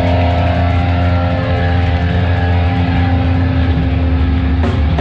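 Live heavy band playing loud: distorted electric guitar and bass holding a droning chord over a heavy low rumble, with a sharp hit near the end.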